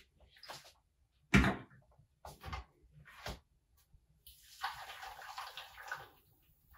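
A few short knocks and clicks, one louder about a second and a half in, as the blender jug is handled, then thick liquid pudding batter pouring from the jug into a glass baking dish for just under two seconds.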